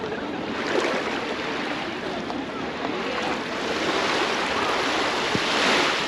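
Sea waves breaking and washing on the shore, a swell building and peaking near the end.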